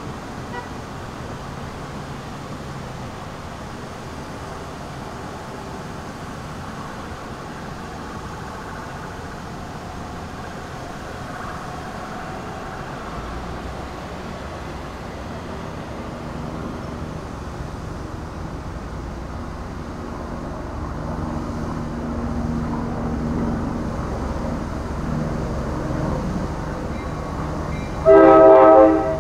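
Train running with a low, steady rumble that grows louder over the second half, then one loud horn blast of about a second near the end.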